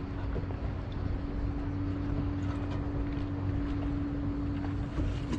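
A boat's motor running steadily: a constant hum over a low rumble, with some background noise.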